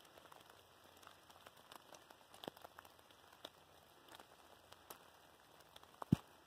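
Quiet woodland with faint, scattered ticks and crackles at irregular intervals, and one sharper tick about six seconds in.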